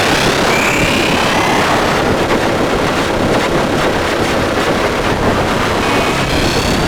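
Harsh noise music: a loud, dense wall of distorted static with a sweeping rising tone about half a second in and a few steady high tones near the end.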